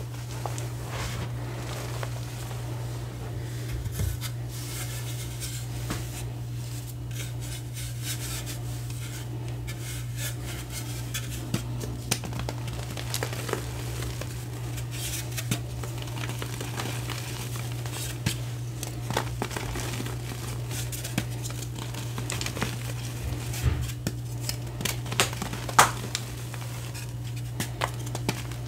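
Hands squeezing and crushing loose gym chalk powder, giving soft crunches and many short crackles, with sharper, louder crackles about three quarters of the way in. A steady low hum runs underneath.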